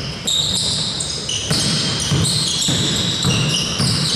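Basketball dribbled on an indoor court, the ball bouncing about twice a second, with sneakers squeaking sharply on the floor again and again.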